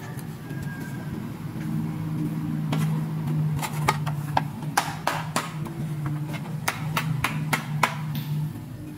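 Hard plastic toy pieces clicking and tapping as a plastic ice-cream-cone-shaped toy makeup case is handled and opened: a quick series of sharp clicks, most of them after the first couple of seconds. A low steady hum runs underneath.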